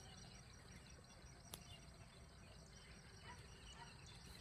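Near silence: faint open-air ambience with distant birds chirping now and then, and one sharp click about a second and a half in.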